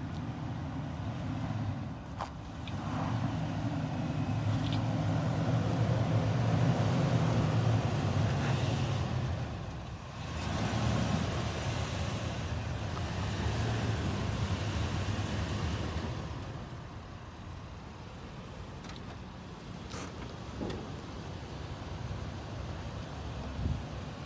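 2006 Toyota Sequoia's 4.7-litre V8 working under load as the SUV climbs a pitted sand hill on traction recovery boards without a run-up. The engine note swells in two long pushes with a short dip between them, then drops lower for the last several seconds.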